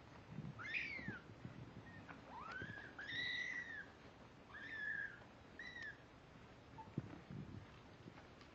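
Seventeen-day-old kittens mewing: about five thin, high mews in the first six seconds, each rising and then falling in pitch.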